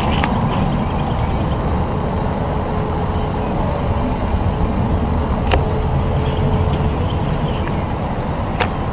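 Loud, steady low rumbling drone of unexplained origin, the 'strange sky noise' people were reporting. A faint held tone sits in it through the middle, and three sharp clicks come, one just after the start, one about halfway and one near the end.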